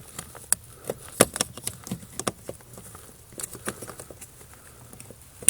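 Irregular clicks, taps and plastic rattles of hands working up under a car's dashboard, pushing a new electronic turn signal flasher into its socket.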